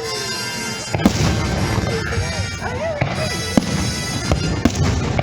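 Fireworks show soundtrack music playing over a dense bed of sound, broken by several sharp firework bangs, the first about a second in.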